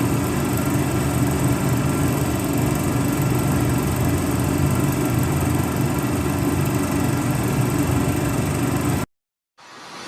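An engine running steadily at a constant speed, which cuts off abruptly about nine seconds in. Music begins fading in just before the end.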